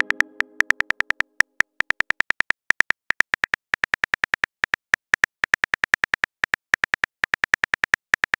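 Simulated phone keyboard typing sound: a rapid run of short, crisp key clicks, about six or seven a second with brief pauses, as a text message is typed out. A pitched tone left over from a chime just before fades away during the first second or so.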